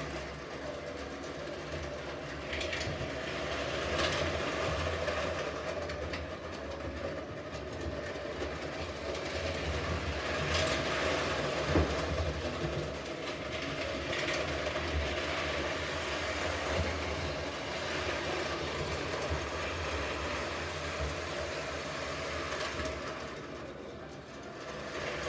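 Lionel O gauge toy steam locomotive and freight cars running steadily around three-rail tinplate track: a steady electric hum with the rattle of wheels on the metal rails. A few sharp clicks come here and there.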